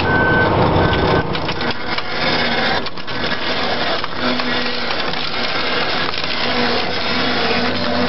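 Giant XTC carbon-fiber hardtail frame crunching and splintering as an excavator's steel crawler track rolls over and crushes it.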